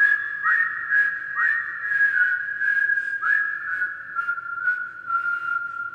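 Whistled melody opening a pop song: several quick upward slides into held notes, then one long note that slowly sinks in pitch, over faint, evenly spaced ticks.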